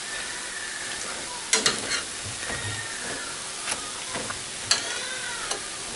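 Pressed green plantain slices shallow-frying in oil, a steady sizzle, with a few sharp clinks of a metal spoon and fork against the frying pan as the pieces are lifted and turned.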